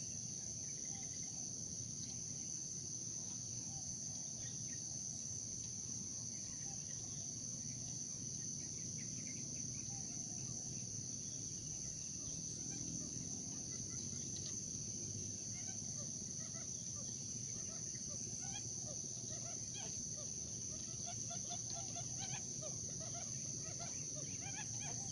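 Steady outdoor insect chorus of crickets, a constant high-pitched trill, with faint scattered short chirps and calls mixed in.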